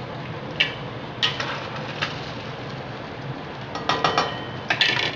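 Boiled mutton pieces sizzling in hot oil in a karahi. A metal spatula clanks and scrapes against the pan a few times early on and in a quick cluster near the end as the meat is stirred.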